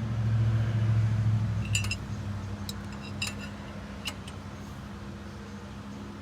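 A loud low hum that drops away about two seconds in, then four or five sharp metallic clinks of steel tools against metal, spaced about half a second to a second apart. This comes while stubborn turbo-to-downpipe nuts are being worked loose.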